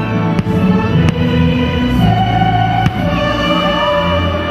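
Fireworks show soundtrack music with long held notes, with several sharp firework bangs over it about half a second, one second and three seconds in.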